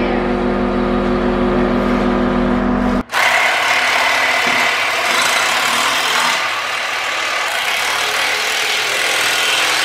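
Farm machine's engine idling steadily with a low rumble, then after an abrupt cut about three seconds in, a steady hissing, rushing noise.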